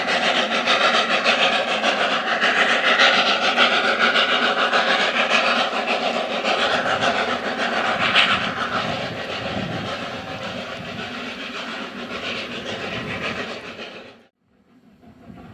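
Snowdon Mountain Railway rack train running past, loud at first and fading away over the second half. The sound cuts off suddenly near the end and comes back much quieter.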